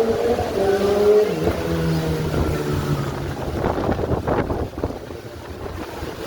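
Road traffic: a motor vehicle's engine runs past with a slowly changing pitch over the first few seconds, then a noisier rush of sound.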